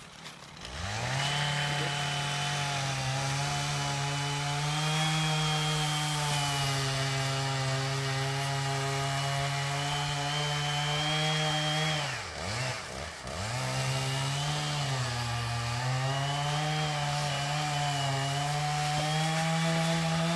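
Two-stroke chainsaw held at full throttle cutting through a section of ponderosa pine trunk. Its pitch drops briefly about twelve seconds in as the throttle eases, then it revs back up and keeps cutting.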